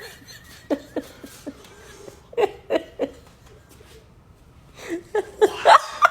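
A person laughing in short, broken bursts of chuckles, in three clusters with pauses between, the last the loudest.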